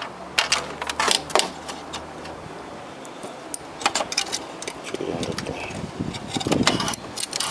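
Light metallic clicks and clinks of small parts and tools being handled while working inside an opened TV set: a cluster in the first second and a half, another about four seconds in, then duller handling knocks near the end.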